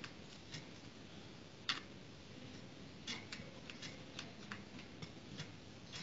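Faint, irregular light clicks and ticks, about a dozen, the sharpest a little under two seconds in, over a low steady hiss.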